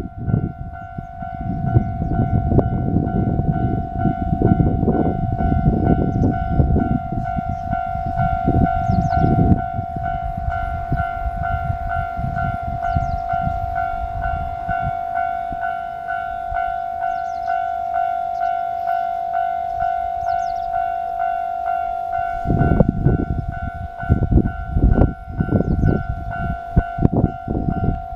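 Japanese level-crossing warning bell ringing steadily, one pitched ding repeated at an even pace. Loud low rumbling and knocks come and go over it, for the first ten seconds or so and again near the end.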